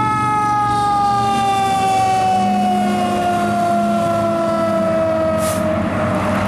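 Federal Signal Q2B mechanical siren on a fire engine winding down, its wail sliding slowly and steadily lower in pitch until it dies out about six seconds in. Engine drone and road noise from the passing truck remain underneath and carry on after it.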